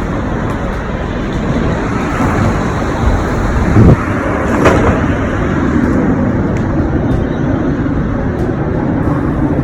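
Steady road traffic noise on a city street, with two brief louder knocks near the middle.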